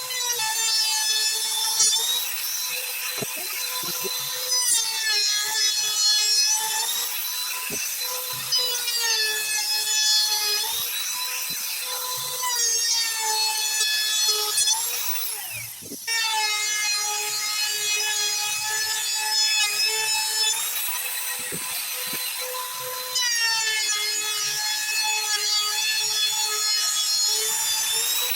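Electric power carving tool cutting wood, a high-pitched motor whine that dips in pitch again and again as the bit bites into the wood and recovers between cuts.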